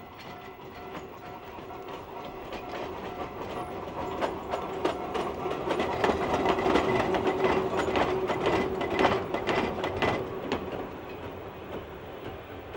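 ED20 electric locomotive hauling a short train of wooden freight wagons past, its wheels clicking over the rail joints. The sound grows louder as the train nears, is loudest as it passes about six to nine seconds in, then fades.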